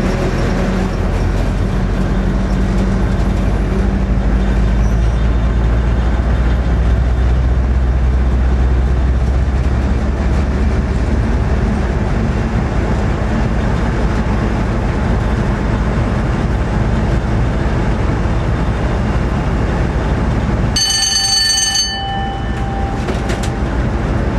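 Class 47 diesel locomotive's Sulzer twelve-cylinder engine running steadily under power, heard from inside the cab, with wheel and rail noise. About three seconds before the end, a high ringing tone lasts about a second while the engine sound briefly drops away.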